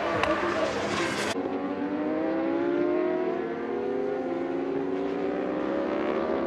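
Racing motorcycle engines at high revs. About a second in the sound cuts abruptly to another shot, where an engine climbs steadily in pitch as it accelerates.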